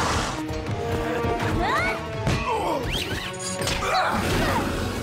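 Cartoon fight soundtrack: dramatic music with several crashing and whacking impact effects from blows, plus a few bending, gliding cries or whooshes.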